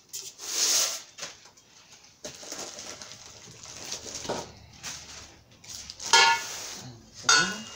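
Plastic-wrapped steel grill leg tubes being handled and fitted together: crinkling plastic film and light knocks of hollow metal tubing, with the loudest rustle about half a second in and a sharp click a little after two seconds.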